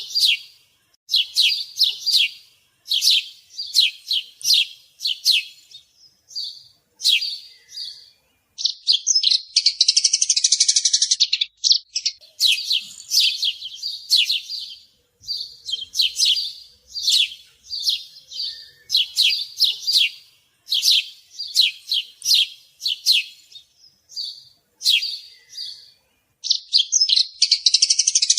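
A songbird chirping in repeated short phrases of quick, sharp high notes with brief pauses between them. Twice, about nine seconds in and again near the end, the notes run together into a longer, rapid trill.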